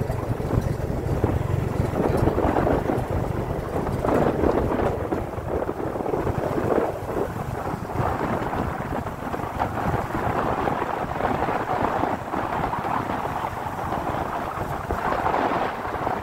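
Steady wind buffeting the microphone over the low running noise of a vehicle moving along a road.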